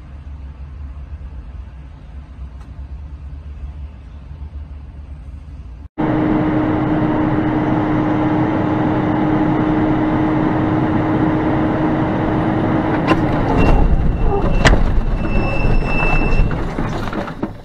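Low rumble of driving noise, then after a sudden cut the loud, steady engine and road noise of a truck's cab, with a held drone. In the last few seconds several sharp knocks and thuds sound over a heavier low rumble.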